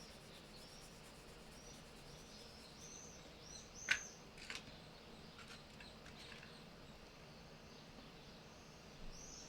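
A bird chirping faintly, a run of short high chirps repeating about twice a second, with a single sharp click about four seconds in and a few soft ticks after it.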